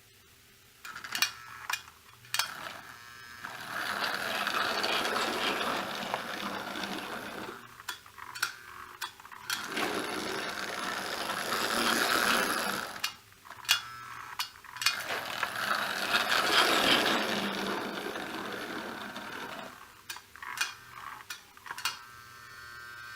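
1949 American Flyer #322 Hudson electric model steam locomotive running on the track, its motor and gearing whirring and clattering. It grows loud in three stretches of several seconds each, with sharp clicks about a second in and again near the end.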